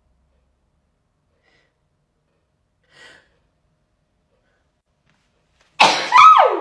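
Silence, then near the end a sudden loud sneeze: a sharp burst of breath followed by a voiced cry that falls in pitch.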